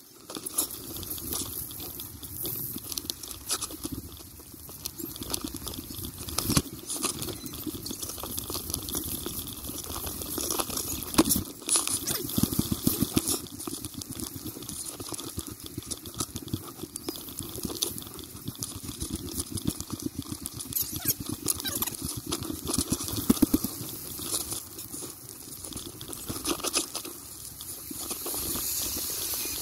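Bicycle tyres crunching through fresh snow as the bike is ridden: a dense, continuous run of small crunches and crackles.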